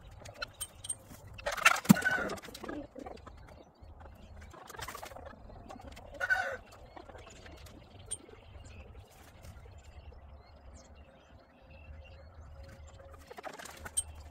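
Chickens clucking in short bouts, the loudest about two seconds in, with a few quieter calls later on.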